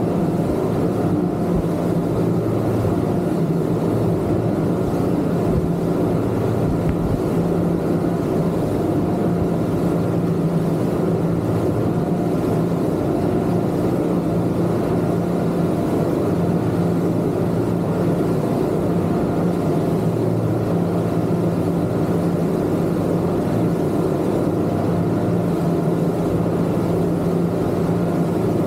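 Twin Yamaha 250 V6 outboard motors running steadily with the boat under way: a constant low engine drone with a rushing haze over it, level throughout.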